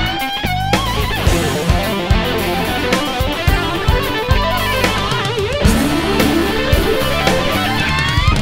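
Rock theme music: electric guitar playing sliding, bending lead notes over a steady drum beat.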